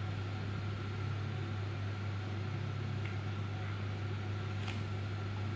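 Steady low hum with a faint click near the end.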